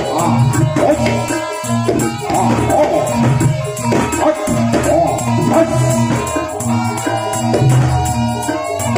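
Live Javanese barongan dance accompaniment: a loud, steady ensemble of struck percussion and sustained low pitched tones, with a wavering melody line over it.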